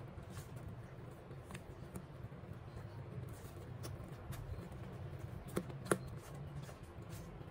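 Silicone spatula stirring and scraping thick cake batter around a stainless steel bowl, with soft squelching and scraping. Two sharp clicks of the spatula against the bowl come close together near the end.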